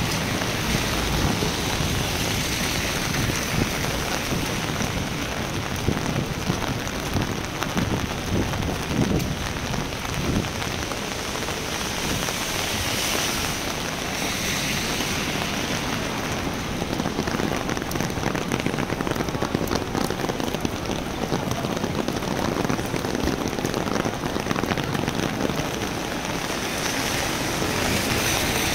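Heavy rain falling steadily: a dense, even patter of drops.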